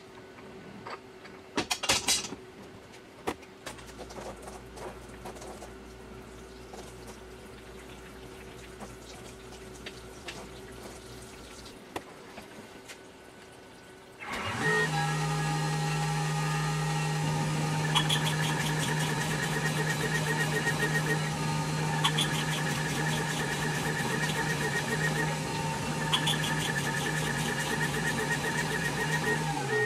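Tormach 440 CNC mill: a couple of sharp clacks near the start, then a quiet low hum. About halfway in, the spindle and flood coolant start together and run steadily, a motor tone under a watery hiss, as a drill deep-drills the aluminium part, with a short repeating change about every four seconds. At the end the spindle winds down, its tone dropping.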